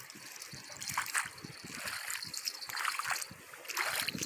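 Irregular splashing in shallow water and wet mud: a freshly landed pejerrey flapping in the shallows and the angler's rubber boots stepping through the water as he reaches for it.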